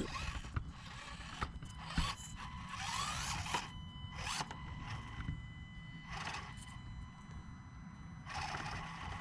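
Axial SCX24 Jeep micro rock crawler's small electric motor and gearbox whirring in several short bursts of throttle as it climbs, one burst rising in pitch about two and a half seconds in.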